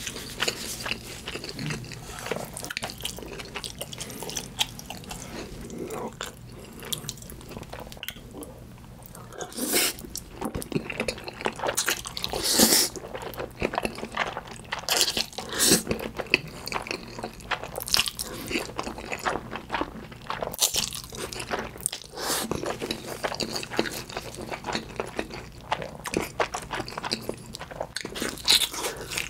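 Close-miked eating sounds: a person slurping and chewing saucy instant black-bean noodles with wet, irregular mouth clicks and smacks. Near the end comes a bite into a thick slab of Spam.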